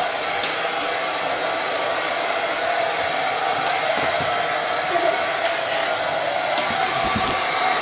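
Handheld hair dryer running steadily: an even rush of blowing air with a constant hum in it.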